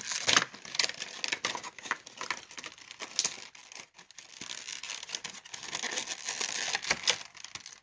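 Clear plastic packaging of a Funko Pop vinyl figure being handled and pulled apart, with rustling and many irregular sharp clicks of stiff plastic.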